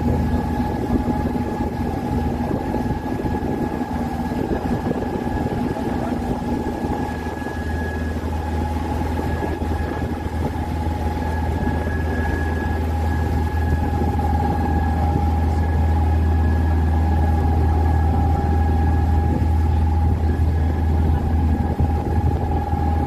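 Open tour boat's engine running steadily under way: a deep drone with a steady whine above it. It gets somewhat louder about halfway through.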